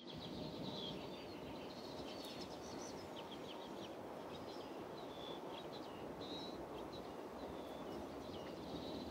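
Faint outdoor ambience: a steady background hiss with small birds chirping and whistling in short calls throughout.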